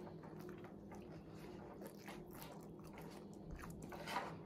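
Faint chewing and biting of takeout food, soft crunches and clicks of a person eating.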